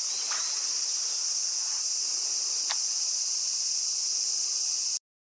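Steady high-pitched drone of summer insects, with a couple of faint clicks; the sound cuts off abruptly near the end.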